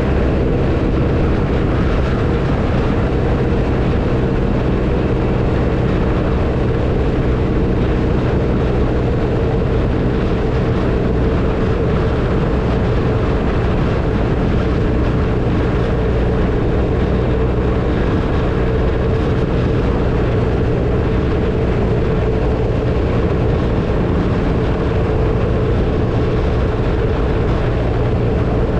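BMW R1250RT's boxer-twin engine running at a steady cruising speed, with wind and road noise rushing over it.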